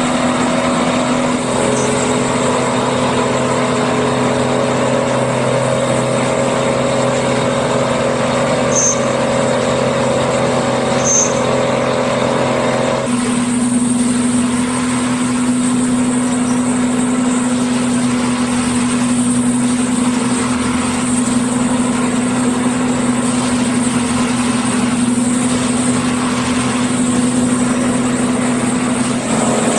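Diesel engine of a yellow railway track-maintenance vehicle running steadily with a constant hum. About halfway through the sound shifts abruptly, its low hum growing stronger as some higher tones drop away.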